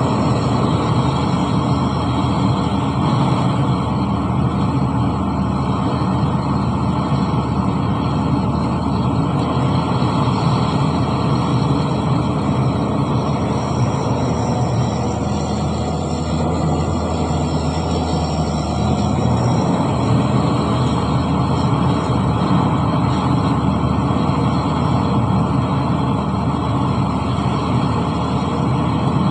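Diesel engines of heavy earthmoving machinery running steadily under work.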